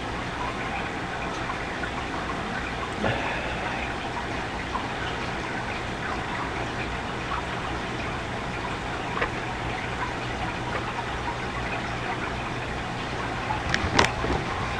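Steady rushing background noise from a desk microphone, fast-forwarded, with a low electrical hum under it. A few faint clicks, and a sharper click near the end.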